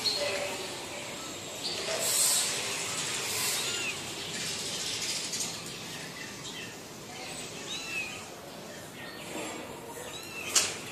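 Faint high bird chirps over a steady background hiss, with a couple of swells of noise and a sharp click near the end.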